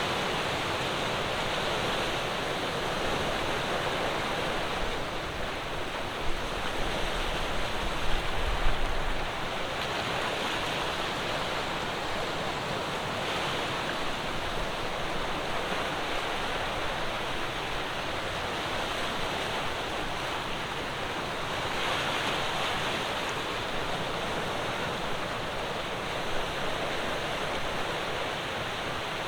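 Ocean waves breaking on the shore: a steady wash of surf that swells and eases every few seconds. A few brief low gusts of wind hit the microphone about a quarter of the way in.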